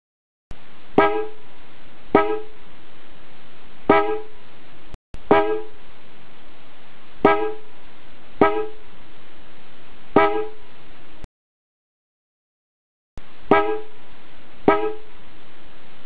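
Pair of original-equipment horns from an early Nissan President JHG50 sounding unmounted, in long blasts broken by two short silences, with a sharp pitched blip every second or two.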